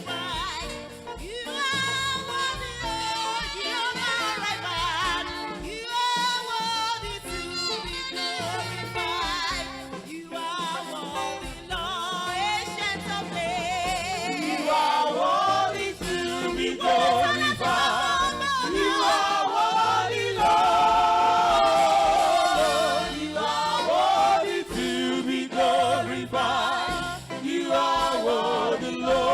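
Gospel music: singing with vibrato over a steady instrumental backing, getting louder about halfway through.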